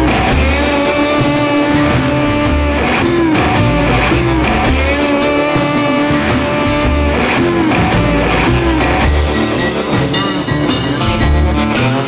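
Rock music led by guitar, with bending notes over a steady low beat.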